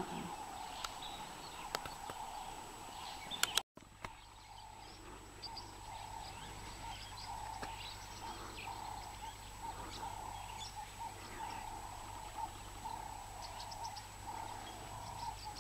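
Faint outdoor bush ambience: scattered short bird chirps over a steady hum, broken by a momentary dropout at an edit about four seconds in.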